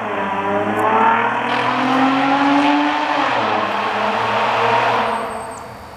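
Straight-piped Infiniti G35's VQ-series V6 exhaust accelerating: the engine's pitch climbs for about three seconds, then drops, and the sound fades away toward the end.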